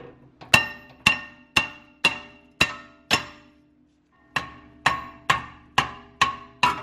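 Hammer striking a stuck cast-iron rear brake rotor on a 2014 Volkswagen Tiguan to knock it off the hub: two runs of six blows, about two a second, with a short pause between, the rotor ringing after each strike.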